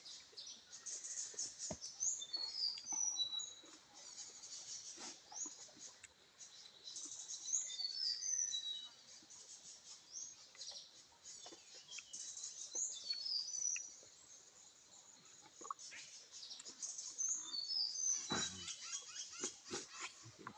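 Birds chirping: repeated bursts of short, high, slurred chirps every couple of seconds, with a few faint clicks underneath.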